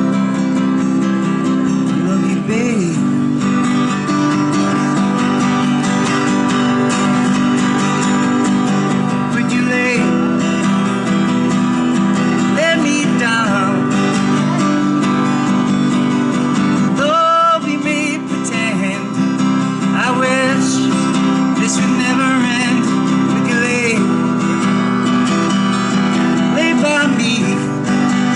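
Steel-string acoustic guitar strummed in a steady rhythm, with a harmonica in a neck rack playing a wavering, bending melody over it: an instrumental break with no singing.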